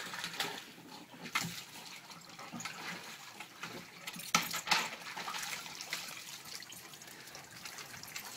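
Water splashing and dripping as a dog climbs out of the water up a boat's metal swim ladder, with a few short knocks.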